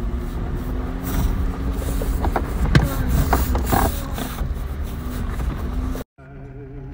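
A Jeep crawling slowly over a rocky dirt trail, heard from inside the cab. The engine runs low and steady under a rumble, and the body and suspension creak and click, thickest from about one to four seconds in. The sound cuts off abruptly about six seconds in, and a faint song follows.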